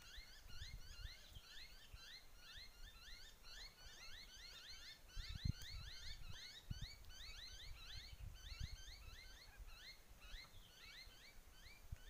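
Faint chorus of birds chirping: many short rising notes overlapping several times a second, over a low rumble with a few soft thumps.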